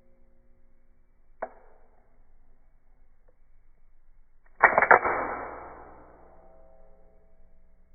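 Cheap out-the-front (OTF) switchblade knife being worked: a light click about a second and a half in, then about halfway through a loud metallic snap of the blade with a couple of quick strikes, ringing and dying away over a second or so.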